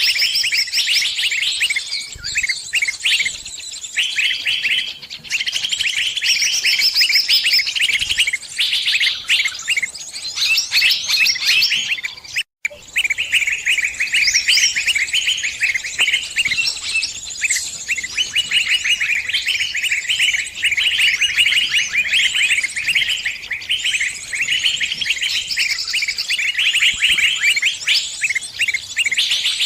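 Small birds, sunbirds, giving dense, rapid, high-pitched chirps and twittering trills without let-up. The sound breaks off completely for a moment about twelve seconds in.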